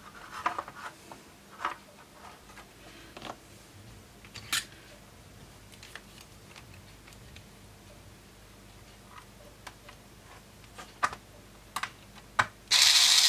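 Scattered light clicks and taps of parts being handled, then near the end a cordless electric screwdriver starts up and runs steadily. The screwdriver is the loudest sound.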